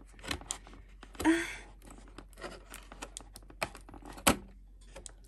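Small rustles and plastic clicks from a fashion doll and its packaging being handled, with a louder rustle about a second in and one sharp click about four seconds in.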